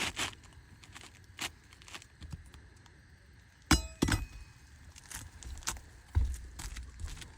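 Metal hand tools clinking and knocking while working asphalt roof shingles: scattered light taps, one sharp ringing clink a little past halfway with a second knock right after, and a few dull thumps near the end.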